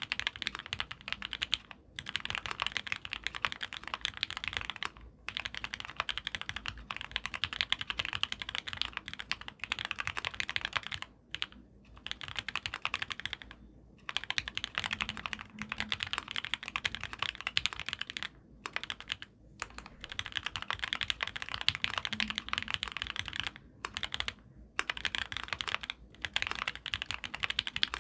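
Typing on an ai03 Vega mechanical keyboard with lubed, filmed Gateron Ink Black V2 linear switches on 70 g springs and GMK keycaps: a quick, steady run of keystrokes in bursts of a few seconds, broken by brief pauses.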